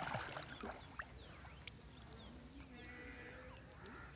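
Quiet outdoor ambience: a steady high-pitched insect drone with short bird chirps, a brief splash of water in the first half-second, and a faint wavering call in the background in the second half.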